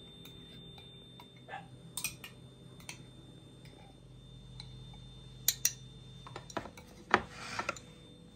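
A metal spoon clinking against a glass jar and a small ceramic dish: a few light, separate clicks, then a louder clatter with a short scrape about seven seconds in.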